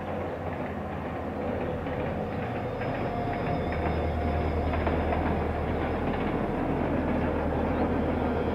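ADtranz diesel locomotive working hard as it hauls a loaded passenger train up the grade across a steel viaduct, its engine straining under the load. The low engine drone gets clearly louder about three and a half seconds in.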